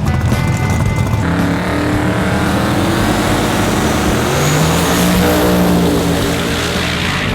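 A drag car's twin-turbo big block V8 running hard under power, loud and continuous, its note changing about a second in.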